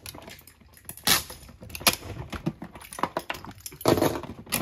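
Plastic storage-cart drawer being pulled open and handled, with scattered clicks, knocks and rattling of the small items inside, busier near the end.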